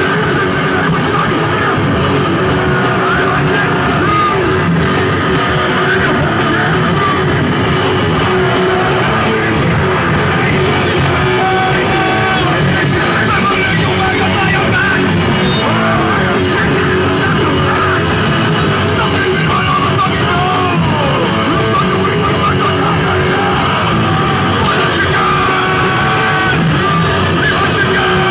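Live punk rock band playing loud, with electric guitar, drums and shouted singing.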